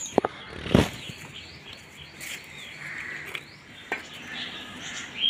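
Small birds chirping repeatedly in short high notes, with two sharp knocks in the first second.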